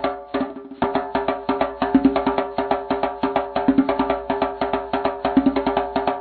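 Background music with a fast, even percussion beat over held tones, dipping briefly just after the start.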